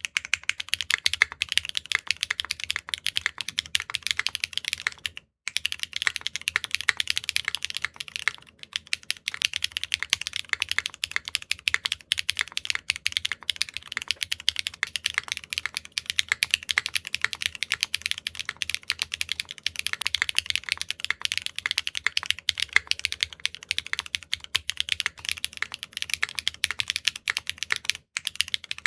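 Continuous fast typing on a custom mechanical keyboard fitted with HMX PEI Bumblebee linear switches: a dense stream of clacky, bright key strikes. The typing breaks off briefly about five seconds in and again near the end.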